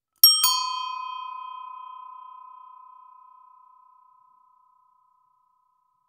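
Bicycle bell rung twice in quick succession, its tone ringing on and slowly fading out over about four seconds.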